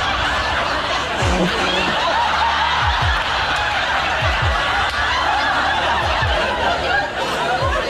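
Several people laughing helplessly together, a man's and a woman's voices among them, the laughter running on without a break. Underneath, low falling thuds repeat in pairs about every second and a half.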